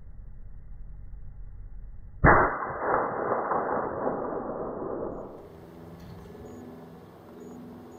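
A single gunshot fired at a squirrel about two seconds in, with a long echo that dies away over about three seconds.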